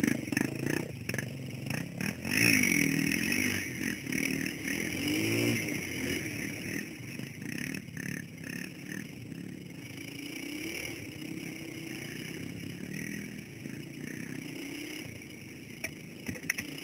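Dirt bike engine on the move, its pitch rising and falling as the throttle is worked, loudest in the first few seconds. Clattering knocks from the bike bouncing over a rough dirt trail come through it.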